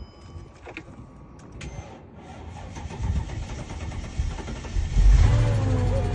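Mercedes CL550's V8 engine cranked on jump-box power, catching suddenly about five seconds in and then running steadily: the dead-battery car starts from a portable jump pack.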